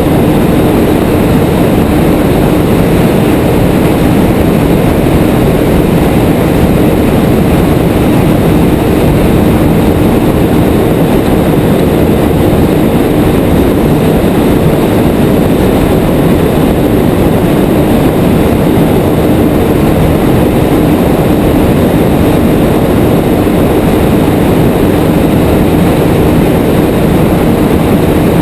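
Motorboat engine running steadily at speed, a constant drone under loud wind and water noise as the boat planes across the sea.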